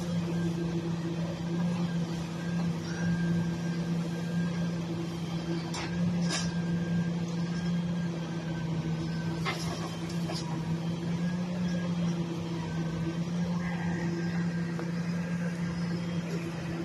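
Refuse collection truck running with a steady low hum. Two pairs of sharp clicks come near the middle.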